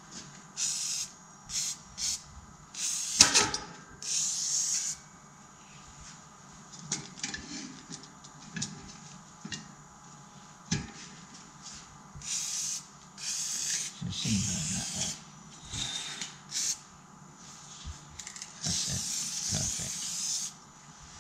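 WD-40 aerosol sprayed through its straw in repeated short bursts, some up to about a second and a half long, onto the splined hub of a clutch plate so that the plate slides on its shaft rather than sticking. One sharp knock about three seconds in, and faint rubbing of the metal clutch parts between bursts.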